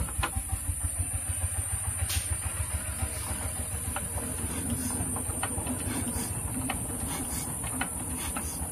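Changfa 1115 single-cylinder diesel engine running steadily, a fast, even low thumping of its firing strokes, with a few light clicks.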